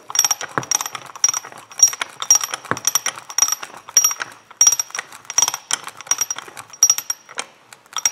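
W.E. Pratt Model T screw jack worked by its handle: the ratchet pawl clicks over the gear teeth about twice a second, each click with a brief high metallic ring.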